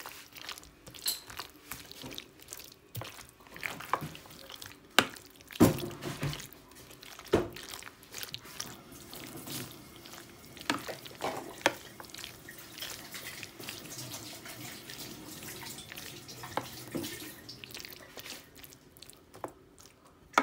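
Metal spoon folding a creamy dressing through chopped fruit in a bowl: wet squelching, broken by sharp clicks and knocks of the spoon against the bowl, the loudest a few between about five and seven seconds in.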